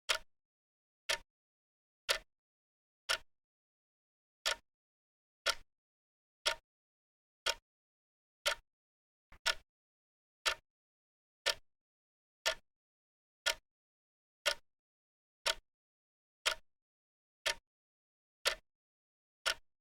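Clock-style ticking of a countdown timer: one short, sharp tick a second, evenly spaced, with silence between ticks.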